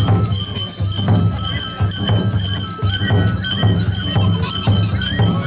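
Shishimai lion-dance festival music: a steady beat of drum strikes, roughly two a second, with held flute-like tones and jingling percussion over it.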